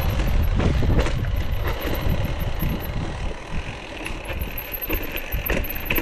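Wind buffeting the microphone of a riding cyclist's action camera, a steady low rumble with tyre and road noise from the moving bicycle and a few sharp clicks.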